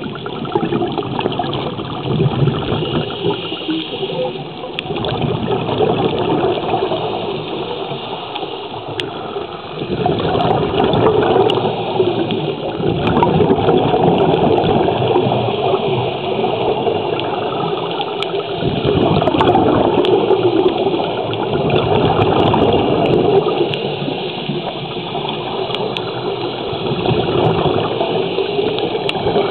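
Scuba breathing heard underwater. The rushing and bubbling of exhaled air from a regulator swells and fades every few seconds.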